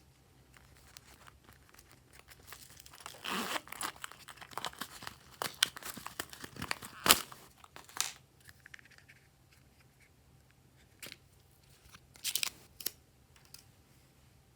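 Glossy slime being worked: a dense run of sticky clicks and crackling pops through the middle, ending a little after halfway, then a short burst of crackles near the end.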